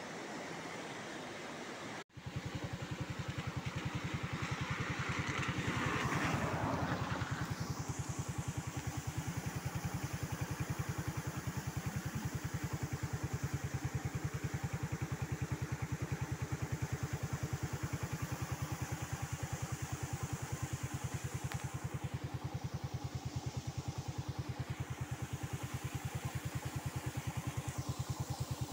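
Rushing river water for the first two seconds, then after a cut a motorcycle engine running steadily with rapid, even firing pulses. A rush of noise swells and fades over the engine about four to seven seconds in.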